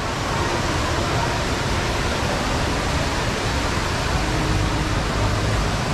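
Indoor waterfall (Jewel Changi's Rain Vortex) pouring from the glass dome into its pool, a steady, even rush of falling water.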